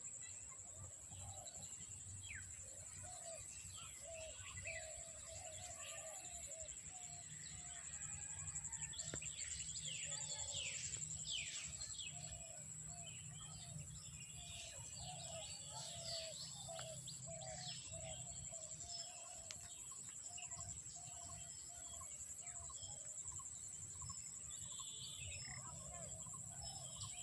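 Wild animal chorus: a steady high-pitched insect drone underneath, birds calling with quick falling chirps that grow busier and louder in the middle, and short low calls repeated about twice a second.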